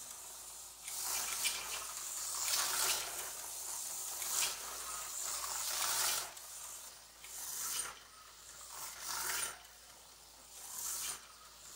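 Aurora HO-scale slot car running laps on a small oval track: its tiny electric motor and gears whir with a rasping, rattling edge. It runs steadily at first, then swells and fades every second and a half or so.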